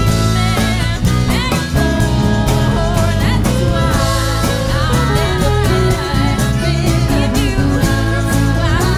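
Live blues band playing with drums and cymbals, bass, keyboard and electric guitar, with a voice singing over it at times.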